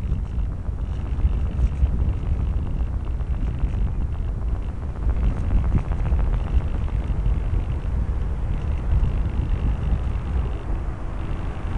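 Airflow buffeting the microphone of a small camera mounted on a Multiplex Easy Star RC foam plane in flight: a steady, loud low rumble of wind noise, with a faint higher whine that comes and goes.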